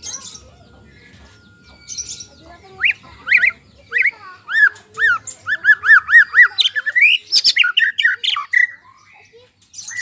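White-rumped shama singing: a short harsh note, then a loud run of clear whistled notes that arch up and down. The notes repeat faster and faster in the middle, then break into a varied jumble before stopping about a second before the end.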